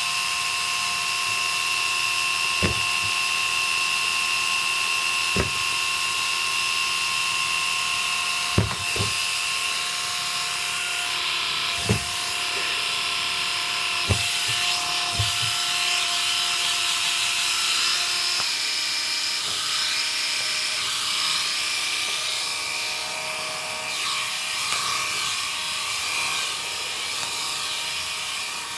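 Small handheld electric shaver running with a steady high whine, broken by a few sharp knocks in the first half; the whine shifts slightly in pitch about two-thirds through.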